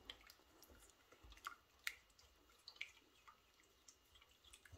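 Near silence with a few faint wet clicks and squelches from a silicone spatula stirring melted dark chocolate into hot cream in a stainless steel saucepan.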